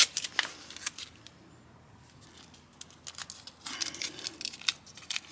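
Masking tape being pulled off the roll and wrapped around a wire and connector: small crinkling and tearing clicks in two short spells, one in the first second and another from about three seconds in.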